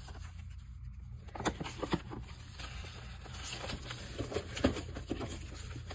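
Paper magazine cutouts rustling and a clear plastic storage box clicking and scraping as pictures are sorted out of it, in scattered light taps.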